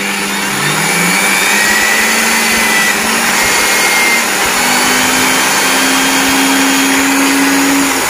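Electric motor of an aluminium cut-off saw converted into a chainsaw chain grinder, running steadily at full speed, with the hiss of its grinding stone sharpening a chain cutter tooth.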